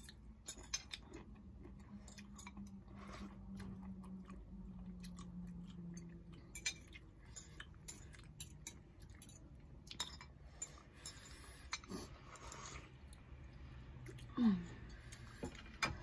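Close-up eating sounds: chewing of instant noodles, with many light clicks of a fork and spoon against ceramic plates. About a second and a half before the end, a short vocal sound falls in pitch.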